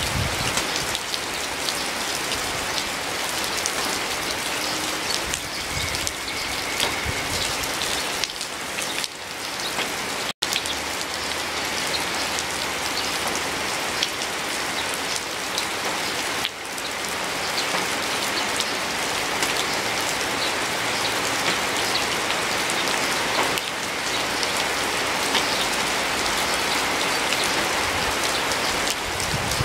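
Steady rain falling and dripping onto garden plants, a dense even hiss speckled with individual drop ticks. The sound cuts out for an instant about ten seconds in.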